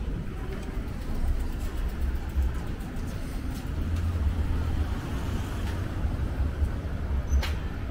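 Street ambience: a steady low rumble of road traffic, with a single sharp click near the end.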